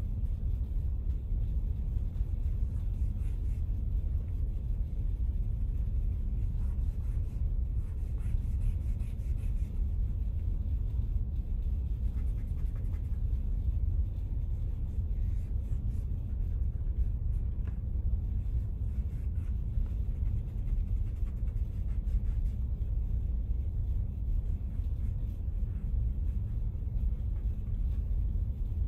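A steady low rumble throughout, with faint scratching of a charcoal pencil on paper at times as shading strokes are drawn.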